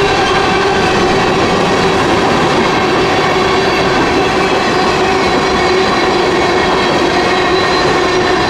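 Empty covered hopper cars of a Norfolk Southern freight rolling past close by, the wheels running on the rails with a steady squeal of several held tones over the rumble.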